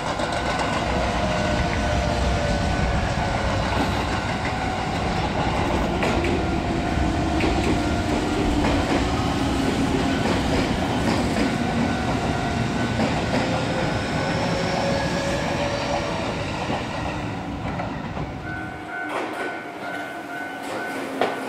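Electric commuter trains passing on the overpass and on the tracks below: wheels clattering over the rails with a motor whine that glides down and up in pitch. About 19 seconds in, this gives way to a level crossing's warning bell ringing over and over.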